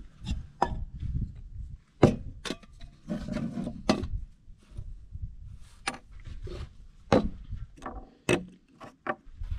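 Camping coffee gear being set down and moved about on a wooden picnic table: a string of irregular knocks and clacks, the sharpest about two seconds in.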